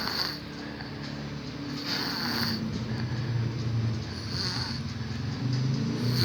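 A person snoring in sleep, each breath swelling about every two seconds over a low rattling drone; the snoring is put down to being very tired.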